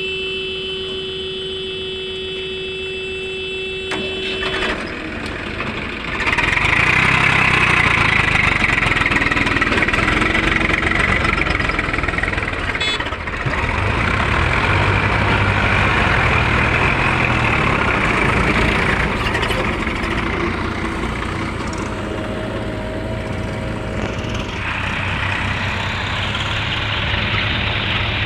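Heavy diesel machinery running, a JCB 3DX backhoe loader's engine, growing louder and working hard from about six seconds in. For the first few seconds a steady held tone sounds over it and then cuts off.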